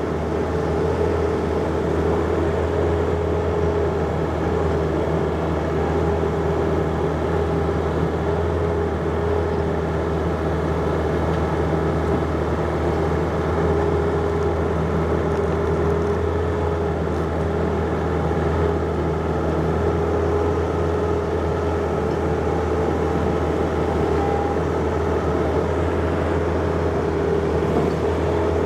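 John Deere 50ZTS mini excavator's diesel engine running steadily at working speed, with a steady whine over the low engine hum.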